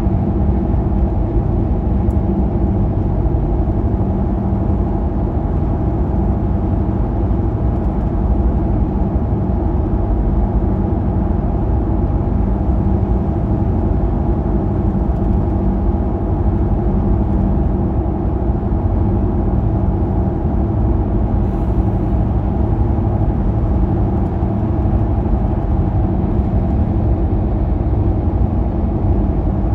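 Car driving at highway speed on the interstate, heard from the dashcam inside: a steady drone of tyre and engine noise that holds an even level throughout.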